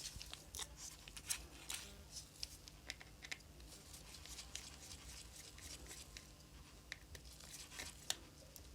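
Faint, irregular small clicks and scratches of a precision screwdriver and tiny screws being worked out of a Samsung Galaxy S8+ phone's frame, over a faint steady low hum.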